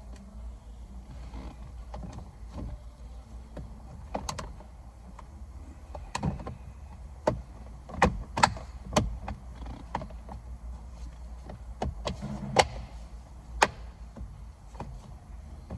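Irregular sharp clicks and knocks of tools and parts being handled, about a dozen over the stretch, over a steady low hum.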